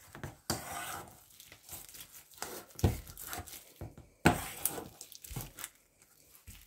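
Potato masher pushed through diced soft cheese and onion in a stainless steel bowl: irregular squishing strokes with several sharper knocks of the masher against the bowl.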